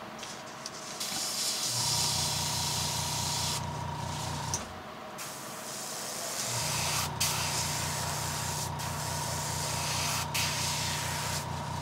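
Airbrush spraying paint onto a fishing lure: a steady hiss of air, which stops for about a second and a half a few seconds in and drops out for an instant three times later. Underneath, the airbrush compressor's motor hums steadily, cutting out near the middle and starting up again.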